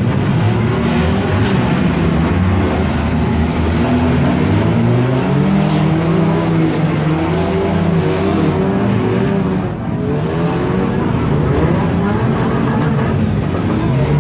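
Several demolition derby cars' engines running and revving at once, their pitches rising and falling over one another.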